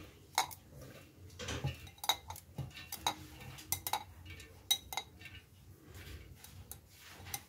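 Light, scattered clinks and taps of a glass bowl against a stainless-steel mixer-grinder jar as cooked rice is pushed from the bowl into the jar by hand.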